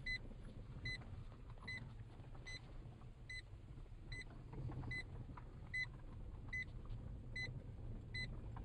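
Car running along the road, heard from inside the cabin as a steady low rumble. A short, high electronic beep repeats evenly about every 0.8 seconds.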